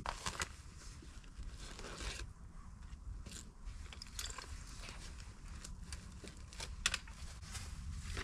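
Scattered crunches and rustles of someone moving about on frost-covered dry leaf litter and handling a bike bag and gear, as short irregular clicks over a low steady rumble.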